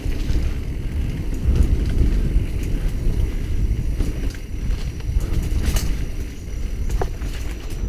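Mountain bike ridden over a dirt trail, heard from a helmet-mounted action camera: a steady low rumble of tyres and wind on the microphone, with scattered small clicks and rattles from the bike.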